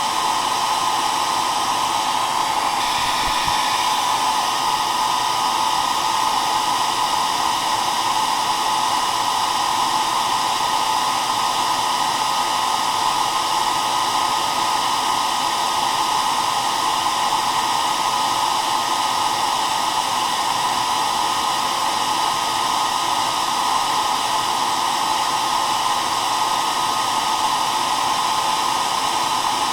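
Hair dryer running steadily: a constant motor whine and rush of air, strongest in the middle range, with a faint high whine above it.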